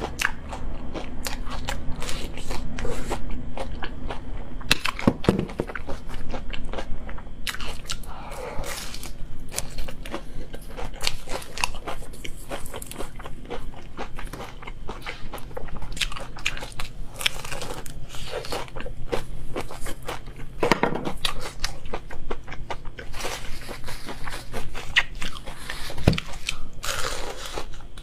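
Crispy fried chicken being bitten and chewed close to the microphone: a run of irregular crunches from the fried coating, with louder bites now and then.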